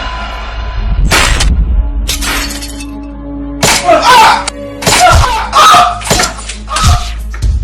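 Music with a string of loud, sudden bangs and crashes, about eight in all, some with a shattering, glassy edge, over a steady low rumble: the sound of a staged gunfight.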